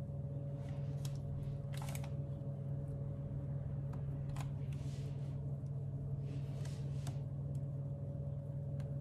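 A wooden spoon spreading and smoothing thick chickpea-flour batter over an oiled metal baking tray, with soft, scattered scraping and smearing strokes. A steady low hum runs underneath.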